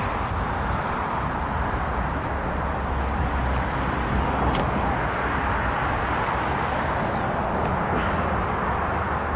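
Steady road traffic noise, a constant wash with a low engine hum beneath it, and a couple of faint clicks.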